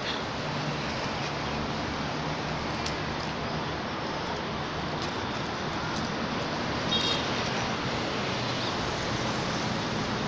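Steady rushing outdoor background noise, with a few faint short clicks.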